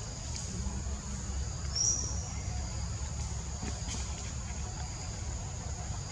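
Steady high-pitched insect drone at two pitches over a low rumble, with one short rising chirp about two seconds in.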